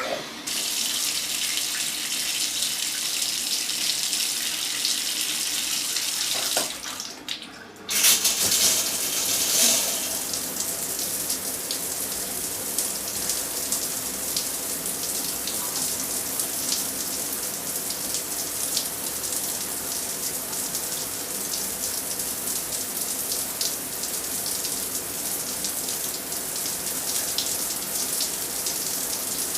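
Shower running: a steady hiss of spraying water. About six and a half seconds in it drops away for roughly a second and a half, then comes back fuller and splashier and runs on.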